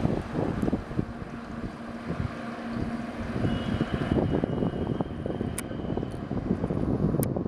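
Road vehicles running past, a low rumble, with wind buffeting the microphone in gusts.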